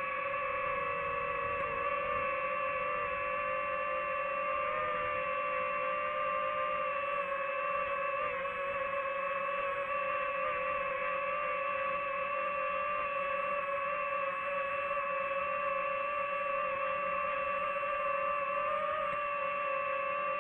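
DJI FPV quadcopter's propellers and motors whining steadily as it hovers and flies slowly, heard from the drone's own microphone: one steady pitched whine with several overtones that wavers slightly in pitch.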